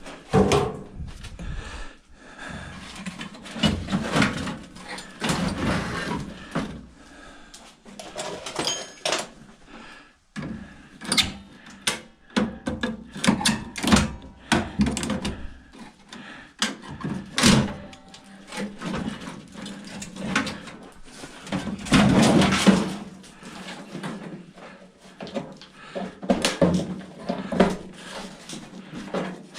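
Irregular clanks, knocks and rattles of sheet-metal parts and hand tools as an old Amana Radarange microwave oven is taken apart by hand, with a louder clatter about a second in and again about two-thirds of the way through.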